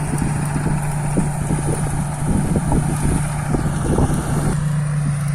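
Rice combine harvester running steadily at work, a constant low engine hum with irregular clattering from the machinery.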